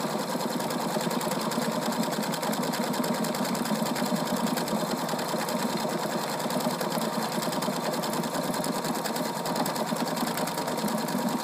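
Husqvarna Viking Designer Diamond Royale sewing machine running steadily, stitching an appliqué stitch with its side-motion foot, the needle going up and down in rapid, even strokes.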